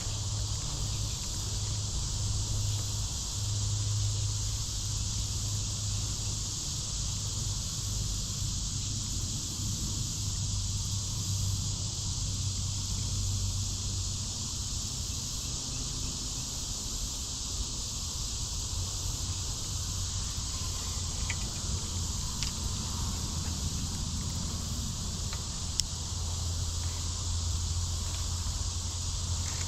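Steady, unbroken chorus of insects buzzing high, with a low steady hum underneath and a few faint ticks.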